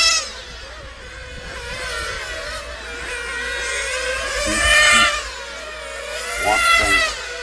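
Nitro-powered RC racing cars, their small two-stroke glow engines running at high revs in a high-pitched buzz. The pitch rises and falls as the cars accelerate, brake and pass. One pass fades right at the start, then cars come in again, loudest about five seconds in and again near the end.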